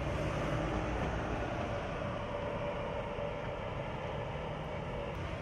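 Steady motor-vehicle driving noise: low engine rumble and road noise, with a faint steady whine.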